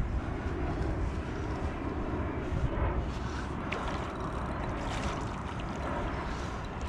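Wind buffeting the microphone in a steady low rumble, over a constant wash of shallow water.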